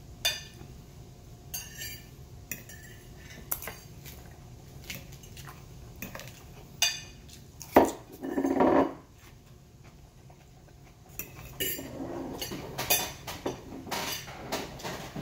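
A metal fork clicking and scraping against a plate as salad is picked up, in scattered sharp clinks, the loudest about eight seconds in. Crunchy chewing of the salad follows, around eight to nine seconds in and again near the end.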